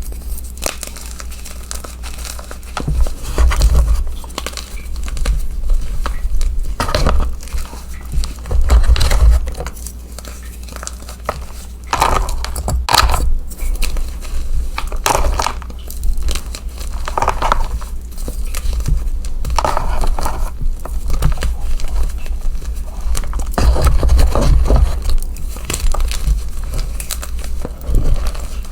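Chunks of gym chalk being crushed and crumbled by hand: dry crunching and crackling that comes in irregular bursts, some with low thuds.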